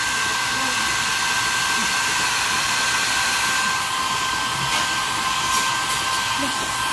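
Hair dryer running steadily: an even rush of air with a steady motor whine.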